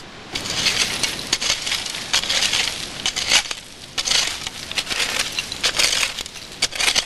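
A stick raking and scraping through dry leaf litter and loose clinker and ash rubble, in repeated gritty strokes with small clicks of stone.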